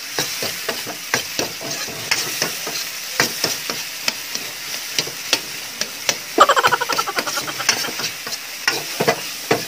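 Tomatoes, onion and ginger sautéing in hot oil in a metal wok, a steady sizzle under repeated clicks and scrapes of a metal ladle stirring and crushing them against the pan. About six and a half seconds in comes a brief, rapid rattling scrape, the loudest part.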